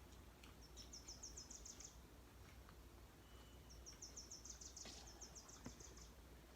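Faint, high-pitched chirping trills from a small animal, heard twice, each a quick run of about ten chirps a second, over quiet room tone with a few faint clicks.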